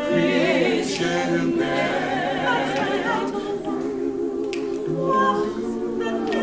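A cappella vocal group singing a gospel spiritual in harmony, voices holding long notes with no instruments.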